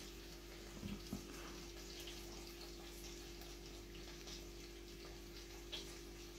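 Quiet room tone with a steady hum, and a couple of soft knocks about a second in.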